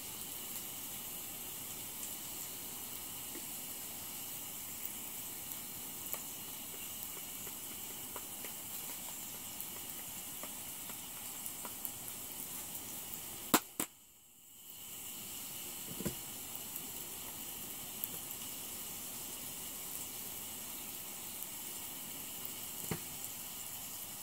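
Onions frying in a pan on a propane camp stove: a steady sizzle and hiss with small crackles. About halfway through a sharp click is followed by a moment of quiet before the sizzling resumes.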